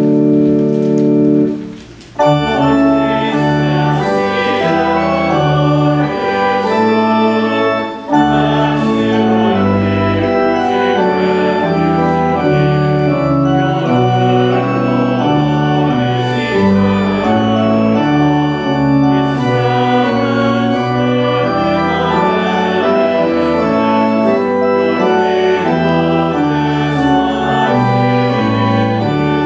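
Church organ playing. A held chord ends about two seconds in, then the organ plays on in changing chords with a brief break around eight seconds.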